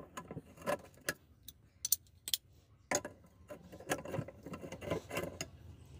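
Socket wrench clicking in a quick, irregular series of sharp metal ticks while the 17 mm nut that holds the fan on a 1 HP water pump motor's shaft is loosened, the shaft braced with a pipe wrench.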